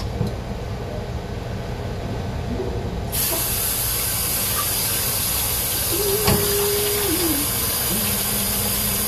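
Kitchen faucet turned on about three seconds in, then water running steadily with a hiss, for rinsing the fish.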